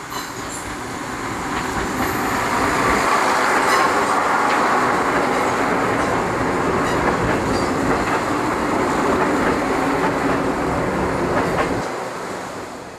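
Apolo series 2400 diesel railcar set passing close by: the engine and the wheels on the rails swell over the first few seconds and hold loud, with a few sharp clicks from the wheels. The noise falls away near the end as the last car goes by.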